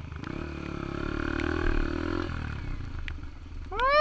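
Yamaha TT-R125 dirt bike's small single-cylinder four-stroke engine running, revving up briefly and then settling back. Near the end a loud, high, wavering cry rises and falls.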